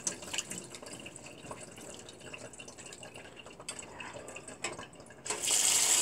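Wet blanched spinach being stirred in a stainless mesh strainer in cold water, with small splashes and drips. About five seconds in, the kitchen tap comes on suddenly and a steady stream of water pours onto the spinach in the strainer, the loudest sound.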